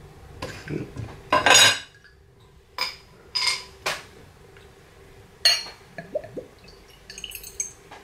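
A bottle opener prying the cap off a small glass bottle, with the loudest clatter about a second and a half in, followed by scattered knocks and clinks of the glass bottle and a wine glass being handled on a table.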